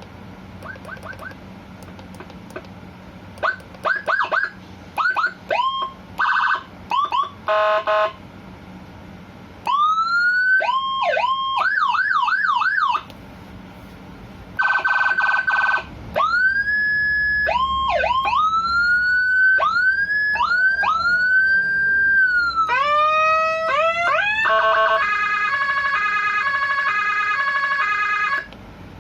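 Electronic siren loaded with Whelen HHS tones, switched through its tone set one after another with short pauses between. It gives short chirps and buzzy horn blasts, a slow rising-and-falling wail, a fast yelp, quick rising sweeps, and near the end a stepped alternating hi-lo tone.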